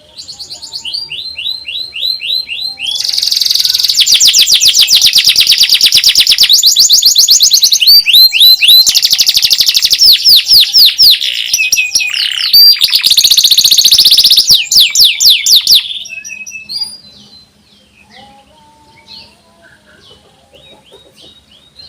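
Domestic canary singing. The song starts with a few separate notes, then about three seconds in turns loud with long runs of very fast, high repeated trill notes that change pace and pitch. About 16 seconds in it drops back to soft scattered chirps.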